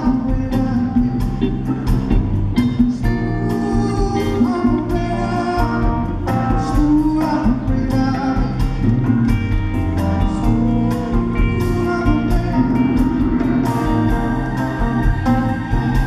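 Live band music with a man singing lead over a steady beat.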